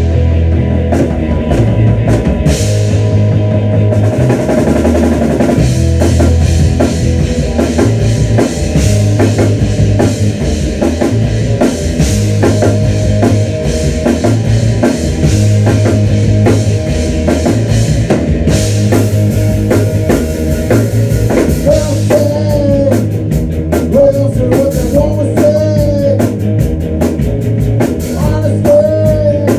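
A rock band playing live in a rehearsal room: a drum kit, electric guitars and bass together at full volume, with a steady driving beat.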